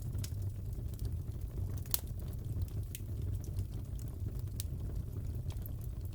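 Fire crackling in a fireplace: scattered sharp pops and crackles over a steady low rumble, with one louder pop about two seconds in.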